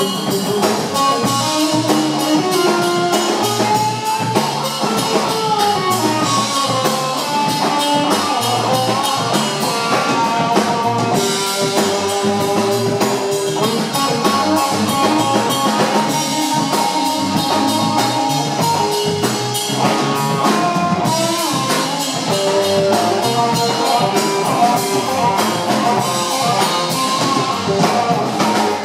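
Live rock band playing an instrumental jam: electric guitar lines over electric bass and a Pearl drum kit with steady cymbal wash, at an even loudness throughout.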